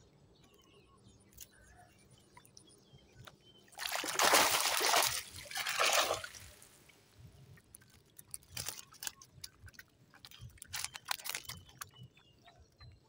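Water sloshing and splashing for about three seconds, starting about four seconds in, followed by a few scattered sharp clicks and taps.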